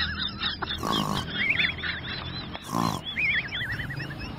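Husky-type dog howling in a car in high, warbling, wavering phrases, with two short, lower grunt-like sounds between them. The steady rumble of the moving car runs underneath.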